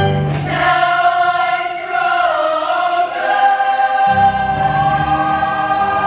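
Women's show choir singing. The band's low accompaniment drops out just after the start, leaving the voices to slide down and settle on a held chord, then comes back in about four seconds in.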